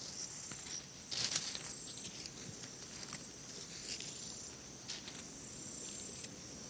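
Grassland ambience of insects trilling steadily at a high pitch, with a few brief rustles about a second in and again near five seconds.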